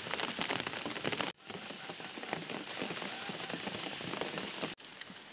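A pot of native-chicken tinola soup at a rolling boil, giving a steady dense bubbling crackle. The sound drops out sharply twice, briefly each time.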